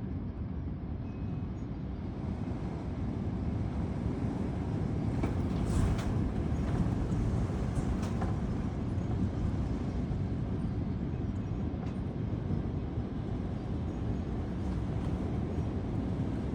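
Thunderstorm wind gusting and rumbling on the microphone, building about two seconds in, with a few sharp ticks in the middle.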